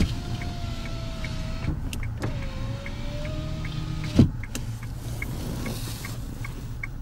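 Electric power window motor in a car door whining as the rear side glass travels, in two runs: one of nearly two seconds, then after a short pause another of about two seconds that ends with a sharp thump as the glass reaches its stop.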